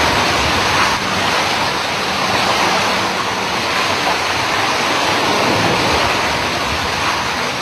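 Hurricane-force wind and storm-surge water rushing outside a building: a loud, steady rush of noise with no letup.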